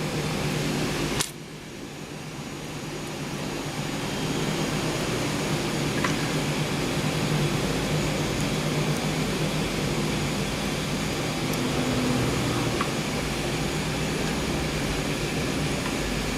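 Steady whirring hum and hiss of a running fan, with a click about a second in where the sound drops and then builds back up over a few seconds.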